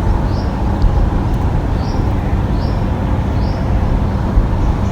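Steady engine and road rumble of a moving vehicle, with a low hum and a short, high, rising chirp repeated about once a second.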